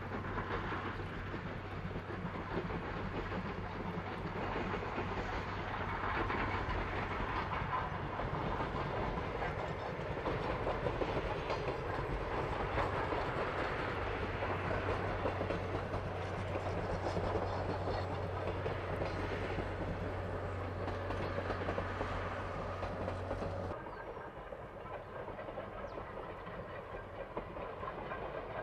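Steam locomotive hauling a train of passenger coaches past, the wheels clattering over the rail joints. About 24 s in the sound drops suddenly to a quieter, more distant train.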